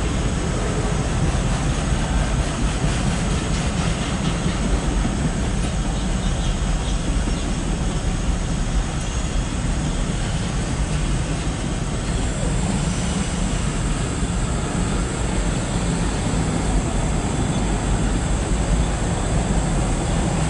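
Loaded CSX autorack freight train rolling past: a steady low rumble of wheels on rail, without a break.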